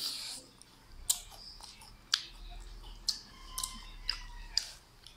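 Mouth sounds of a crisp breaded fried chicken fillet being bitten and chewed, with about five sharp crunches spread a second or so apart.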